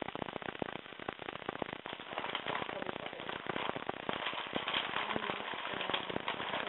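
Dense, irregular crackling made of many rapid small clicks.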